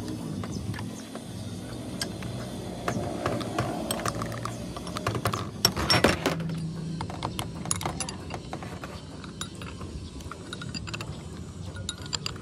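Steel ring spanner clicking and clinking on a hex nut and threaded rod while a nut is tightened on a cast truck air compressor head, with metal-on-metal knocks as the tools and head are handled. The loudest clatter comes about six seconds in, over a steady low hum.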